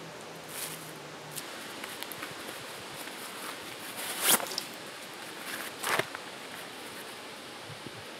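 Handling noises of setting up a tarp camp: a few sharp knocks and clicks, the loudest about four seconds in and another about six seconds in, over a steady hiss.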